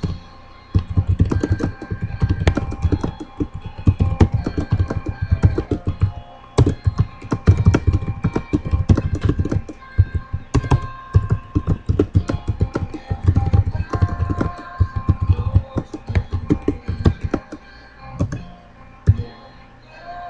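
Computer keyboard typing: fast runs of keystroke clicks with short pauses, over background music.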